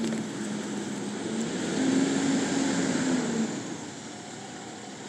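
A heavy truck's engine runs with a low drone that grows louder about two seconds in, then fades away.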